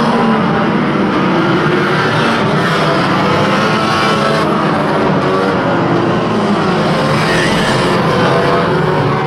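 Engines of a pack of banger racing cars running hard together, several pitches rising and falling at once over tyre noise. The mix changes abruptly a little past four and five seconds in.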